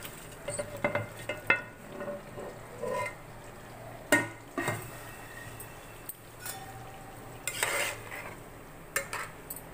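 A spoon stirring and scraping in a cooking pan, with scattered clinks against the metal and a longer scrape a little before eight seconds, as fried chicken pieces are mixed into the chilli sauce and vegetables.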